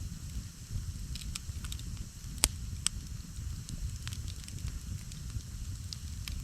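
Campfire burning: scattered crackles and sharp pops over a steady low rumble, with the loudest pop about two and a half seconds in and a second one just after.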